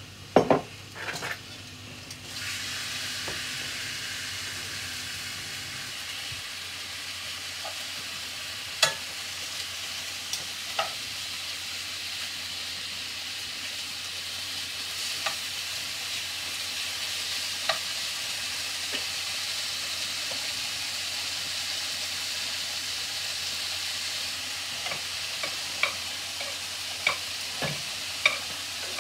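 Strips of rump steak sizzling as they are sealed in a frying pan on a gas hob; the sizzle sets in about two seconds in and then holds steady. Occasional clicks come from a utensil turning the meat against the pan.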